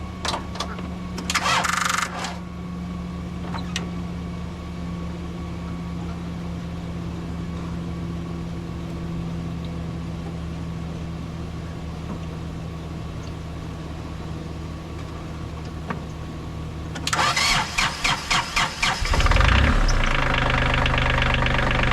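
A steady low engine hum, then near the end a tractor's engine cranking over in quick, even chugs for about two seconds before it catches and settles into a steady, louder run.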